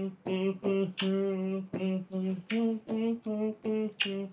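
A voice singing a simple tune in short, evenly spaced syllables, about three a second, stepping back and forth between two notes.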